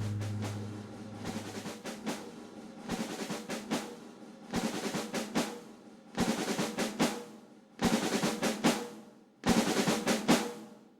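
Background music: a held chord fades out, then a snare drum roll comes in short bursts that grow louder each time, building up.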